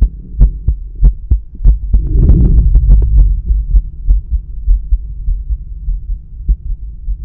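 Male heartbeat heard through a stethoscope placed at the pulmonic area: regular, evenly spaced thumps over a low hum. About two seconds in, a brief rushing noise rises over the beats, and after it the beats grow fainter.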